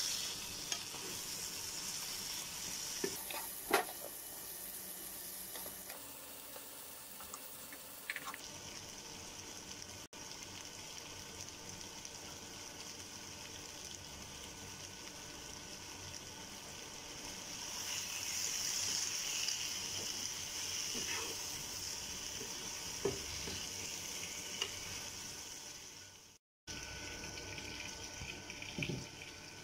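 Chicken and onion masala frying in a non-stick kadai, sizzling steadily, with a wooden spatula stirring and now and then knocking sharply against the pan. The sizzle grows louder for a few seconds past the middle and cuts out for a moment near the end.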